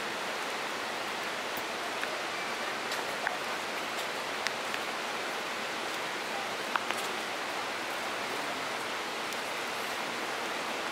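Steady rush of running water, with a few faint, sharp clicks scattered through it.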